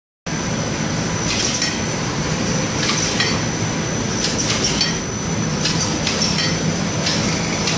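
Pita bread production line machinery running: a steady hum and high whine with paired clacks that repeat about every second and a half.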